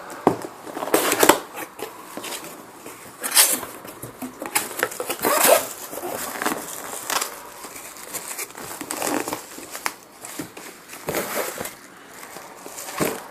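A shipping package being opened by hand: tape and packaging tearing and crinkling in irregular short rasps.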